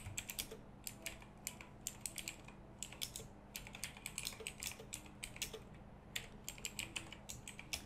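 Typing on a computer keyboard: quick, uneven runs of quiet key clicks with short pauses between them.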